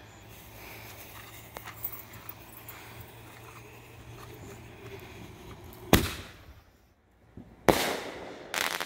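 Consumer aerial firework going off: a sharp launch bang about six seconds in, then the shell bursting overhead about a second and a half later, followed by another bang near the end.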